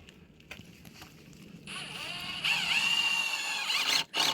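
Power drill running into fence wood: the motor whine starts about a second and a half in, gets louder and its pitch dips and recovers, then it stops briefly near the end and gives a short second burst.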